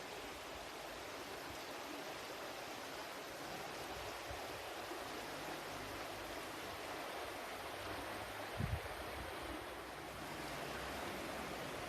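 Flowing water rushing steadily, like a stream, with one brief low thump about two-thirds of the way through.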